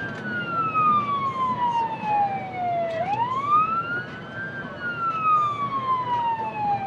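Fire truck siren wailing: each cycle rises quickly from about 650 Hz to 1.5 kHz, then falls slowly over about three seconds and repeats. A steady low rumble of vehicle and road noise runs underneath.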